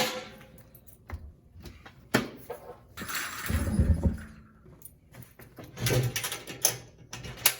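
Handling noise from a garage utility vac being put back together: scattered knocks and clicks of its parts, with a longer scraping rustle about three seconds in.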